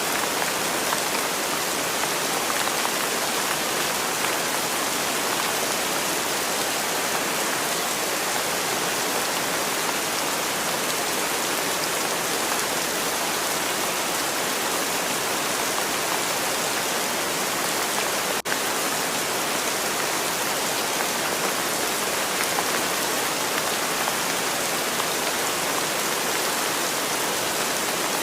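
Steady rainfall sound, an even hiss of rain with no breaks except a split-second dip about eighteen seconds in.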